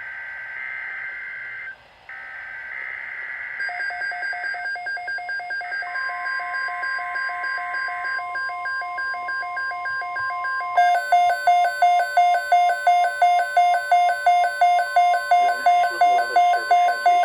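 Emergency Alert System alert tones. It opens with the two-tone warbling data bursts of the SAME header, with a short break between bursts. A steady weather-radio alert tone near 1 kHz comes in about 6 s in and holds. Over it a pulsing electronic alarm beeps about three times a second, much louder from about 11 s in.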